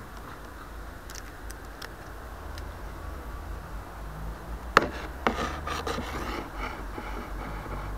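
A sharp click about five seconds in, then a second click and about a second of scraping and rubbing, over a low rumble.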